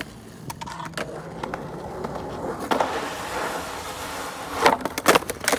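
Skateboard wheels rolling on asphalt with scattered light clicks, then several sharp, loud clacks of the board near the end as the skater ollies over a milk crate and lands.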